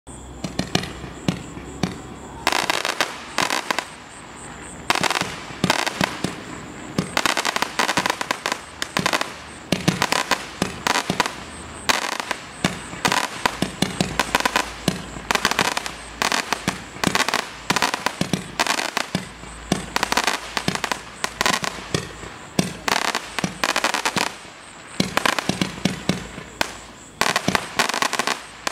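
A 14 mm, 56-shot firework candle firing shot after shot: rapid sharp bangs in quick clusters with short lulls between.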